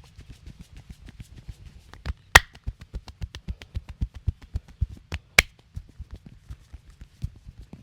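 Hands striking a person's body in a fast percussive massage, several dull slaps a second in an even rhythm. Two much louder, sharper smacks come about three seconds apart.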